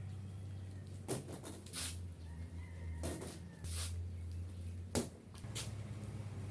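A series of irregular sharp knocks and thumps, about seven in all, over a steady low hum.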